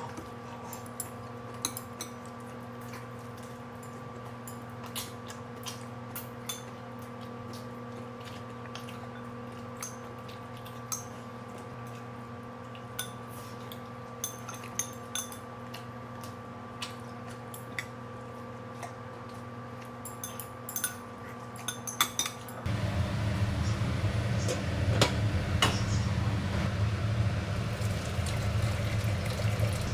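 Dishes and utensils clinking in short, scattered clicks over a steady electric hum. About 23 s in, the hum gives way abruptly to a louder, steady rushing noise.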